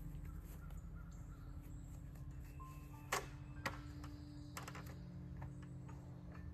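Two sharp knocks about half a second apart, then a quick run of clicks, as a stepladder is climbed. Under them is a steady low hum with scattered short bird chirps.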